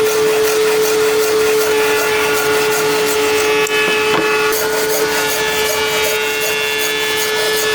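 An electric power tool running at a steady pitch while it works wood, with a rough rasping noise and a few sharp ticks over its motor tone.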